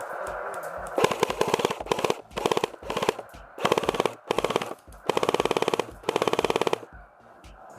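Airsoft electric guns firing on full auto: about six short bursts of rapid clicking shots, starting about a second in, with brief gaps between bursts.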